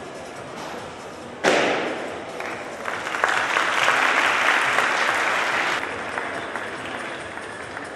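A sudden thump about a second and a half in, then audience applause that swells and stops about two seconds before the end.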